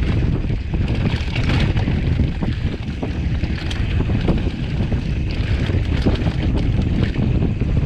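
Mountain bike descending a rocky dirt singletrack: wind buffeting the handlebar-mounted camera's microphone over a steady rumble of tyres on dirt, with scattered knocks and rattles from the bike as it rolls over rocks and bumps.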